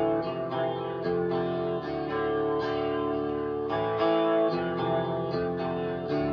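Klipsch R-40PM powered bookshelf speakers playing rock music: a picked guitar riff of ringing notes, a new note every fraction of a second, over a sustained low part.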